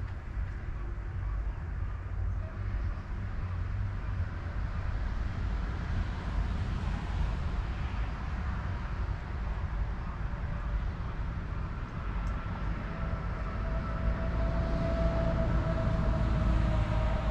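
Steady low rumble of distant engines, getting louder over the last few seconds as a steady whine joins in.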